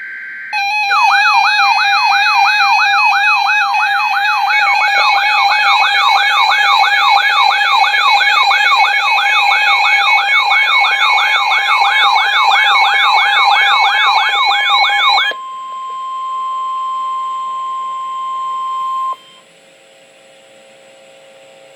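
Emergency alert attention signal: a loud electronic tone wailing up and down about three times a second over a steady tone. About 15 seconds in it cuts to a quieter steady single tone, which stops about four seconds later, leaving a faint hum.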